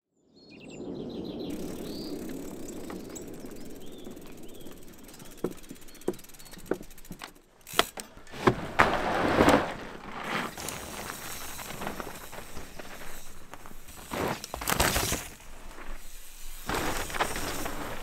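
Outdoor ambience with a few bird chirps, then, from about eight seconds in, a downhill mountain bike ridden hard down a forest dirt trail: tyres scrubbing and skidding through the dirt, with clicks and knocks from the bike, and louder surges of tyre noise as it carves turns, around nine seconds in and again near fifteen.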